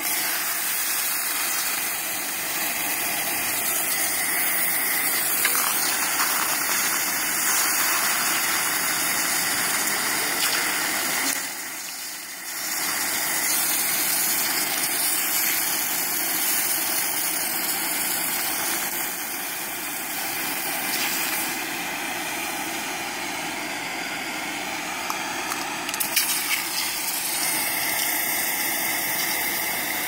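Glowing red-hot handcuffs quenching in a bucket of ice water: a steady hiss of water boiling off against the hot metal, dropping away briefly near the middle, with a few sharp clicks near the end.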